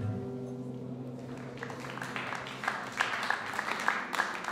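The last notes of an acoustic guitar fade out, and about a second in an audience starts applauding, the clapping building towards the end.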